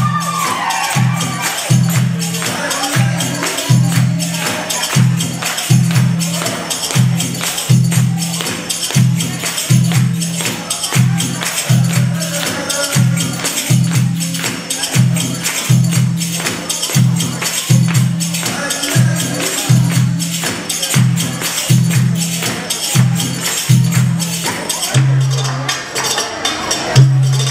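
Middle Eastern drum solo music for belly dance: a steady pattern of deep drum strokes, a little over one a second, under fast, dense high tapping and jingling percussion. About 25 seconds in the deep strokes change to longer, held beats.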